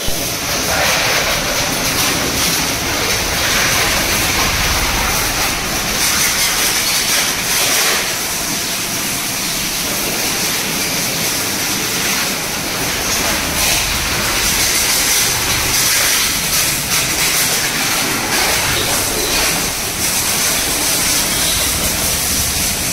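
Steady, loud hiss of a pressure washer's water jet spraying a motorcycle during its wash.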